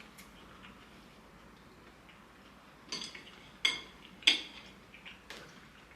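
Eating utensils clinking against a dish during a meal: three sharp clinks about halfway through, with a few fainter taps around them.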